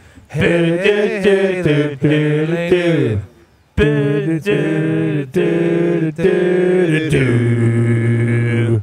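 A man singing without accompaniment in several drawn-out phrases, with a short break a little past three seconds in and a long held note near the end.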